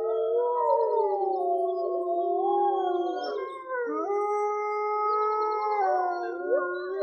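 Arctic wolf pack howling in chorus: several long, overlapping howls at different pitches, each sliding up or down and then held.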